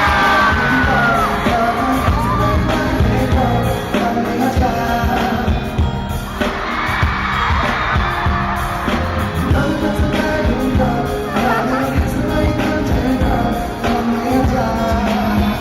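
Loud amplified pop music with singing and a steady beat over a concert sound system.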